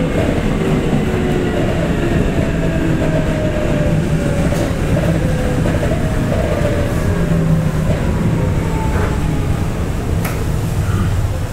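Keikyu 800 series electric train running, heard aboard motor car DeHa 812-2: the traction motor and gear whine falls steadily in pitch over the rumble of wheels on rail as the train slows. A few sharp clicks sound along the way.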